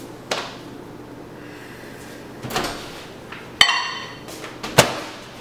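Microwave oven being loaded: a few clicks and knocks of the door and of a cup being handled, then a sharp click with a brief ringing clink about three and a half seconds in and a loud sharp knock about a second later.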